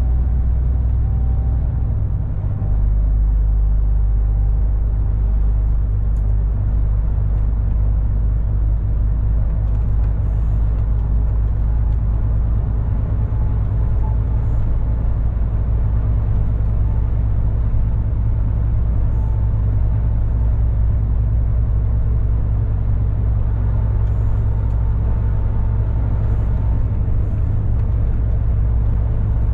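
MAN TGX 18.460 lorry's diesel engine and tyres running in a steady low drone while driving on the road, with a brief dip and change in the drone about two and a half seconds in.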